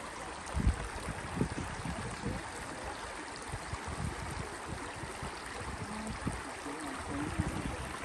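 Steady rush of flowing water, with irregular low thumps, the loudest in the first second and a half.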